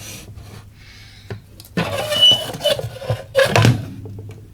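Handling noises from work on a radio chassis: two spells of scraping and rustling over a steady low hum.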